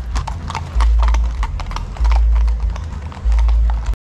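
Several horses' hooves clip-clopping on an asphalt street in a quick, dense patter of overlapping footfalls. A low rumble swells and fades about every second and a half under the hoofbeats, and everything cuts off abruptly at the very end.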